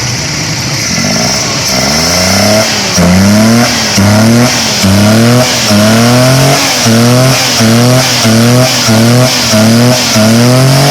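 Daihatsu Mira's EFI petrol engine being revved in quick, repeated throttle blips, each a short rising surge in pitch, about one or two a second. It pulls up cleanly after new spark plugs, cleaned ignition coils and a cleaned throttle body cured its misfire.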